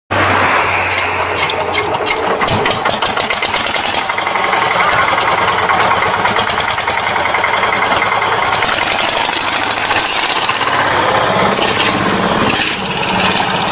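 Improvised small engine bolted onto the back of a car, running loudly and steadily.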